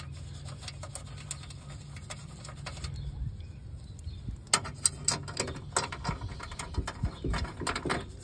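Irregular light clicks and rattles of hand work on bolts and a metal mounting plate in a vehicle's engine bay. They are sparse at first and come thick and fast in the second half, over a steady low hum.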